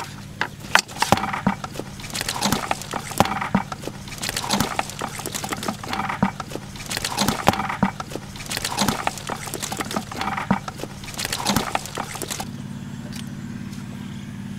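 Woven bamboo fish trap shaken and knocked over a plastic bucket, its slats rattling and clattering in repeated bouts about every second and a half, stopping about twelve seconds in; a steady low hum runs underneath.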